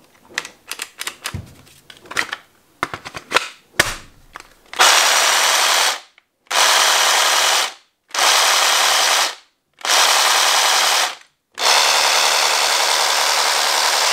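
Several clicks from the trigger and handling, then the Einhell TE-AP 18 Li cordless reciprocating saw runs in five short bursts of a second or so each, going silent between them. The motor works only intermittently and keeps cutting out even when running without load.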